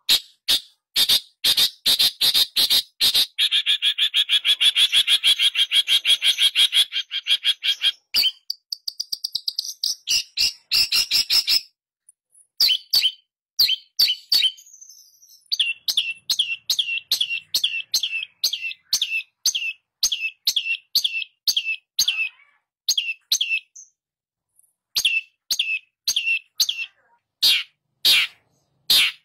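Long-tailed shrike (pentet) singing loud, sharp, repeated notes: a dense fast run for the first several seconds, then even series of notes at about two to three a second, broken by short pauses.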